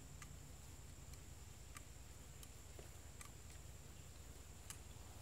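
Near silence: faint outdoor room tone with a low steady hum, a thin steady high-pitched tone, and scattered faint ticks.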